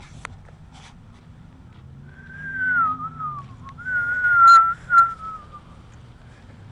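A person whistling two long, slowly falling notes, with a couple of sharp clicks during the second.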